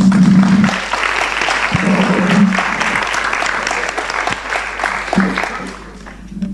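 Audience applauding, the clapping thinning out and fading in the last second or so.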